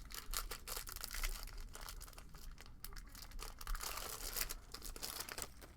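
Foil trading-card pack wrappers crinkling and tearing as packs of Topps baseball cards are opened, a dense run of short crackles.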